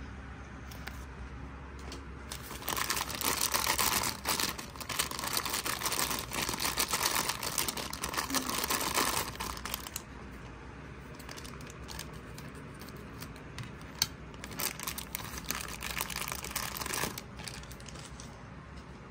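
Clear plastic toy bag crinkling as it is handled and torn open, in two spells: a long one and a shorter one later. A single sharp click falls between them.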